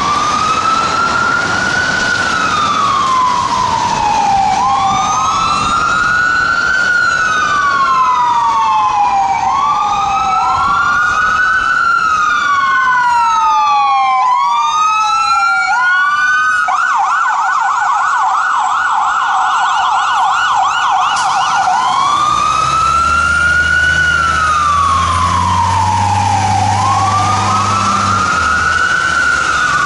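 Fire truck sirens wailing, rising and falling slowly, with two sirens overlapping for a stretch. About halfway through they switch to a fast yelp for several seconds, then go back to the slow wail. A low steady hum sits underneath near the end.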